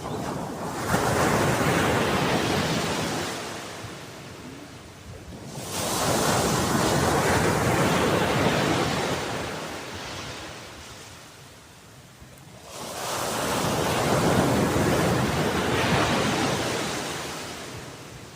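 Sea waves washing ashore: three waves in turn, each a rush of surf that builds, holds for a few seconds and fades away before the next one comes in.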